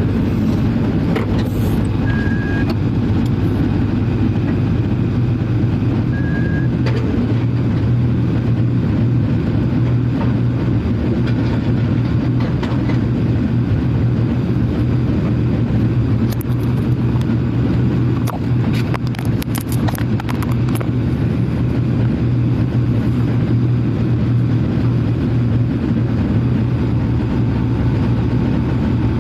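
Steady motor vehicle engine and road noise, a continuous low drone, with a short run of quick clicks about two-thirds of the way through.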